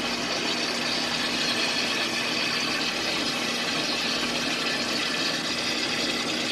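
Monarch lathe's spindle gearbox running with its cover off: oil-bathed gears meshing and churning in a loud, steady mechanical noise with a constant low hum underneath.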